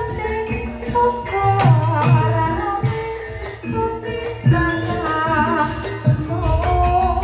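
Javanese gamelan music accompanying a lengger dance, with sustained tones from the struck instruments and regular drum strokes under a wavering sung melody.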